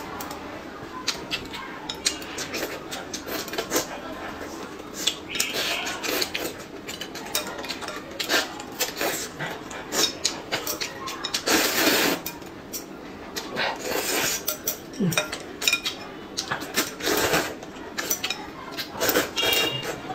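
Eating noodle soup close to the microphone: chopsticks click and scrape against a ceramic bowl many times, with slurping of noodles and broth and chewing in between.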